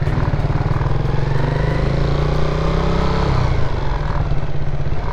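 Motorcycle engine running while riding, picked up on board, with road and rushing-air noise over it. The engine note eases off a little about three seconds in.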